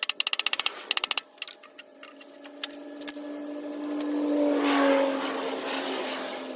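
Fast, even ratchet clicking, about a dozen clicks a second, for roughly a second, then a steady drone that swells and fades, sinking slightly in pitch.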